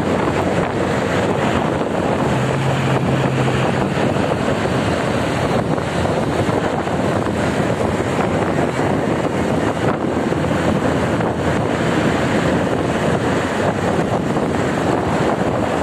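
Steady, loud wind buffeting the microphone over the rush of road and traffic noise from a vehicle moving at speed along a highway, with a brief low hum about two seconds in.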